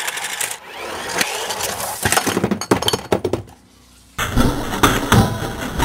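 A battery-powered Lightning McQueen toy car crashing into a chocolate surprise egg and knocking over small plastic toy figures. A run of clattering knocks and breaking sounds, then a louder crash about four seconds in.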